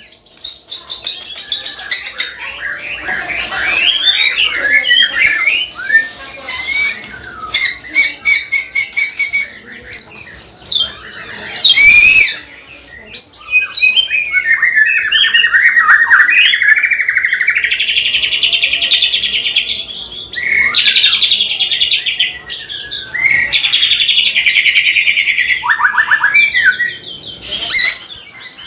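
White-rumped shama singing a loud, varied song: quick whistled notes and sweeps, trains of rapid clicking 'cekrek' notes, and long buzzy held notes in the second half. Its keeper presents this full song as the bird's recovery from a cough.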